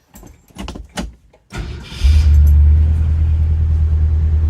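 A few clicks and knocks, then the car's engine cranks briefly and catches about two seconds in, settling into a loud, steady, pulsing idle. The engine has a miss that the owner says is very noticeable at idle.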